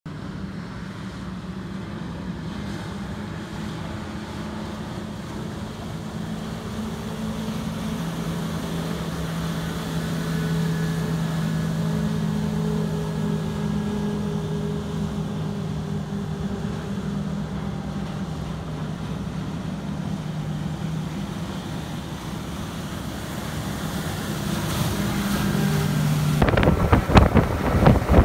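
Twin Mercury Verado 350 hp four-stroke outboards running at speed on a rigid inflatable boat, a steady drone with a couple of held tones that grows louder toward the middle as the boat passes, then eases off. About 26 seconds in it changes abruptly to loud rushing wind and churning wake heard from on board behind the engines.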